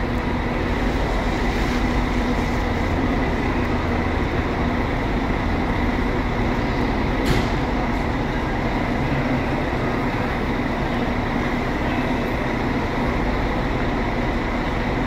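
Intercity coach engine running steadily close by, a constant low rumble with a faint steady whine above it; a short sharp click about seven seconds in.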